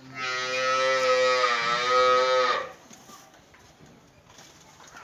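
A cow mooing once, one long call of about two and a half seconds.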